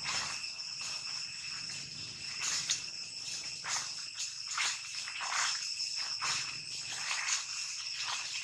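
Steady high-pitched insect chorus, several buzzing tones held together, with short rustles of dry leaf litter about once a second.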